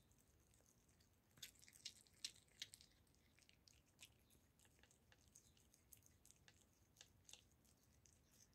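Tabby cat chewing and gnawing a raw goose neck: irregular sharp clicks of its teeth on meat and bone, with a quick run of louder ones about one and a half to three seconds in.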